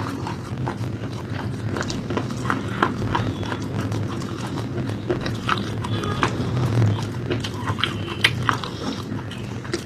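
Crunchy food being bitten and chewed: irregular sharp crunches, several a second at times, over a steady low hum.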